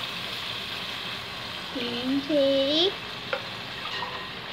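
Water poured into a hot aluminium pot of toasted rice and peas, sizzling steadily as it meets the hot pot: the water being added to cook pulao. A short voice is heard briefly about two seconds in.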